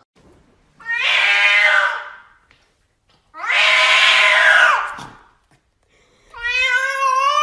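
A domestic cat gives three long, drawn-out meows with short silent gaps between them. The second meow falls in pitch at its end, and the third begins near the end.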